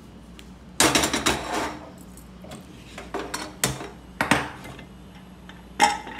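Stainless steel pressure cooker set down on a gas stove's pan support, with a loud metal clatter about a second in, then several lighter clanks as its lid is taken off and put aside.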